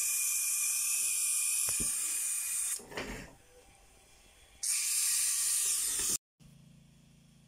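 Steam hissing out of a D45 toy steam engine's whistle valve, rigged as a blower into the smokestack, venting boiler steam and bleeding off pressure. Two long hisses with a short break and a knock between them; the second cuts off suddenly.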